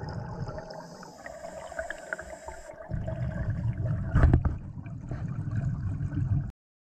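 Muffled underwater noise from a scuba diver's regulator exhaust bubbles, a low gurgling rumble that pauses for about two seconds early on and returns. A sharp knock sounds about four seconds in, and the sound cuts off abruptly near the end.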